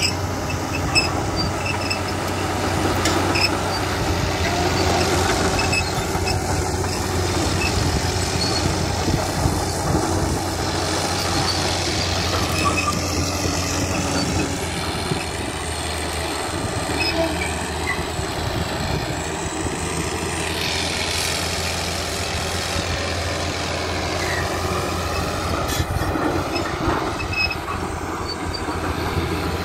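Crawler bulldozer working steadily, its diesel engine running under load with the clatter of its steel tracks as it pushes its blade through brush.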